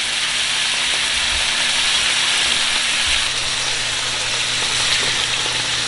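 Yellowfin tuna steaks searing in hot olive oil in a frying pan, a steady sizzle.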